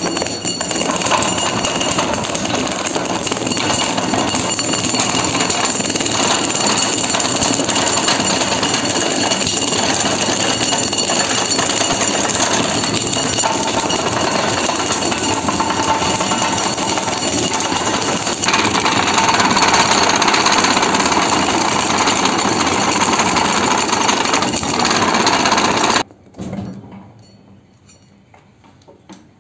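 Tractor tyre rubber cutting machine stripping the old tread off a turning tractor tyre in preparation for remoulding: a loud, steady mechanical noise. It gets a little louder about two-thirds of the way through and cuts off suddenly near the end.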